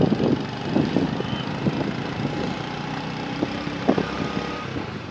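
Vehicle engine and road noise running steadily, with scattered knocks and one sharper knock about four seconds in.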